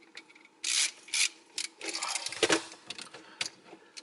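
A hand tool working the terminal screws of a wall outlet as its wires are taken off: a run of short, irregular scrapes and clicks, with a sharper click about two and a half seconds in.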